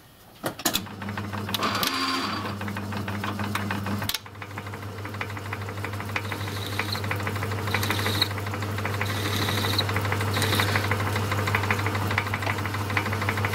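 Myford lathe switched on about half a second in, then running with a steady motor hum and a fast rhythmic clatter from its drive. Several short high-pitched bursts sound over it as the tool cuts a small chamfer on the end of the bar.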